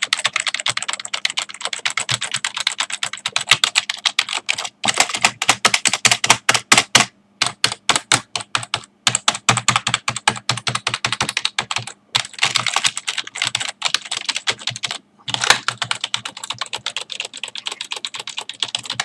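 Fast typing on a Microsoft RT2300 silicone-membrane keyboard: rapid runs of key clicks broken by short pauses, with all the keys clicking at about the same loudness.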